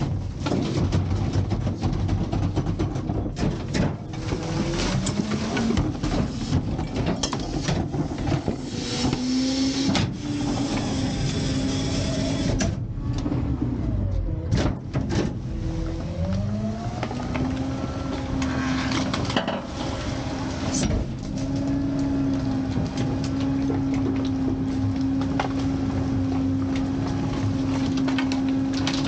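McNeilus rear-loader packer running a compaction cycle. The truck's hydraulic pump whine rises and falls several times as the engine speeds up to drive the blade, amid clanks and scraping of metal and garbage in the hopper. From about two-thirds of the way in, the whine holds at one steady pitch.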